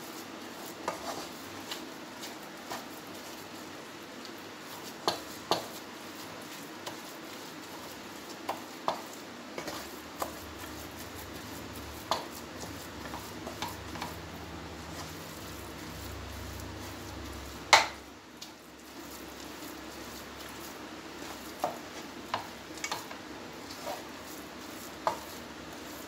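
A spatula stirs a coconut, milk and ghee mixture in a non-stick kadai, with irregular clicks and scrapes against the pan over a steady sizzle. One louder knock of the spatula on the pan comes about two-thirds of the way through.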